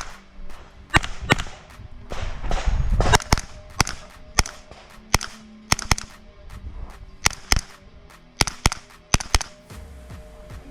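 Pistol-calibre carbine firing a string of shots through an IPSC stage, about twenty sharp cracks at an uneven pace, many of them in quick pairs (double taps) a third of a second apart, with short gaps between as the shooter moves from target to target.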